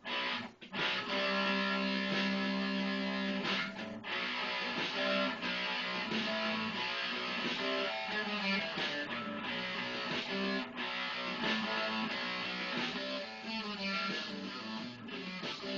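Electric guitar playing a rock jam, mostly held chords and notes, with two short breaks in the first second.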